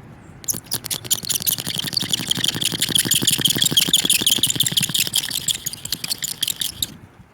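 A blade scraping hardened pit filler off windshield glass wetted with glass cleaner, in rapid back-and-forth strokes with a scratchy squeal. It starts about half a second in and stops shortly before the end: the final cleanup of a chip repair, leaving the resin flush with the glass.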